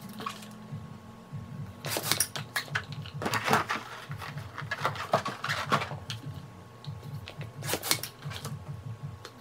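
Small latex quick-link balloons being inflated with a hand balloon pump and tied off: a run of short, noisy pump strokes and rubber squeaks and rubbing, with clicks, coming in clusters a second or two apart.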